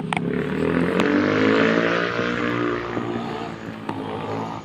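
A motor vehicle passing close by: its engine note rises in pitch and loudness over the first second or so, then levels off and fades as it goes on.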